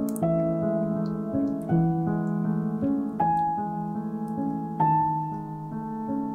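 Background piano music: gentle sustained chords, a new one struck about every second and a half.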